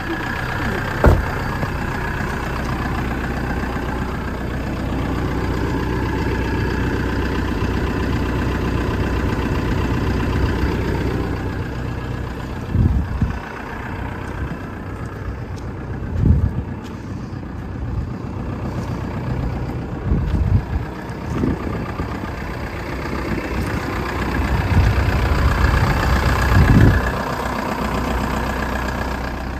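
Kia Bongo pickup truck's engine idling steadily, with a few brief thumps along the way.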